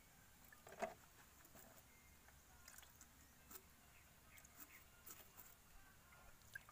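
Near silence, with faint scattered clicks and taps from hands handling the plastic and metal parts of a diesel fuel-filter housing. The sharpest click comes about a second in.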